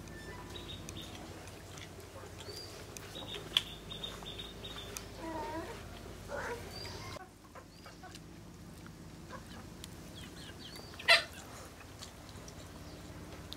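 Birds chirping and chickens clucking, with a sharp knock about three and a half seconds in and a louder one near eleven seconds.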